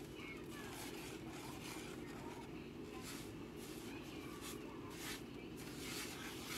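Silicone spatula stirring and scraping granulated sugar and butter around a nonstick frying pan: a run of soft, gritty scrapes, more frequent in the second half, over a steady low hum.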